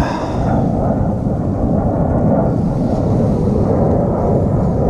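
Wind buffeting the microphone, a steady, loud low rumble.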